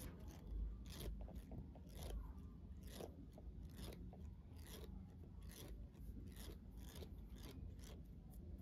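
Twisted thread being worked over the upper lip in threading, plucking out the hairs with faint, quick snapping rasps about twice a second.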